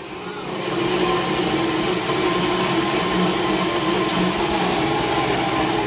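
NutriBullet personal blender running with its cup pressed down, blending cooked butternut squash and stock into a thick soup. The motor noise swells over the first second, then runs steadily.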